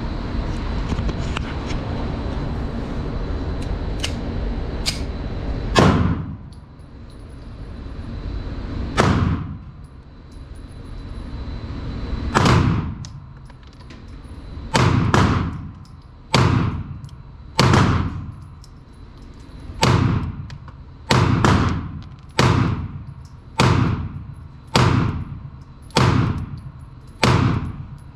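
Taurus PT-92 AFS 9mm semi-automatic pistol fired about fifteen times in an indoor range, each shot sharp with a short echo. The first shots come about three seconds apart, then the pace quickens to about one a second. Before the first shot, some six seconds in, there is a steady rush of background noise.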